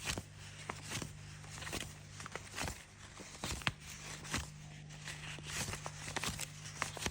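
Money being counted by hand: irregular crisp snaps, clicks and short rustles, over a steady low hum.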